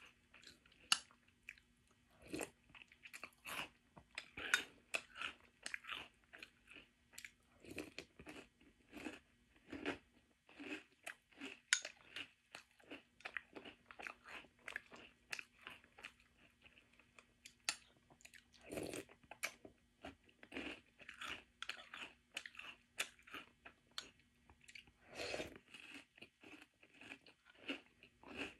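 Close-up crunching and chewing of French Toast Crunch, a crisp sweetened corn cereal, spooned from a bowl: a steady run of sharp, crackly crunches.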